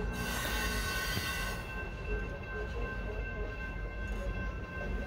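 Union Pacific freight train's double-stack container well cars rolling past a grade crossing: a steady low rumble of wheels on rail, with a steady high-pitched tone over it. A hiss is heard for about the first second and a half.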